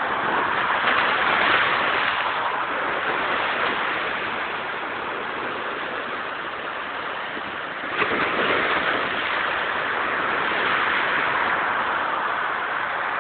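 Rough sea surf: waves breaking and rushing in heavy wind, a steady roar that swells about a second in and again with a sudden surge at about eight seconds.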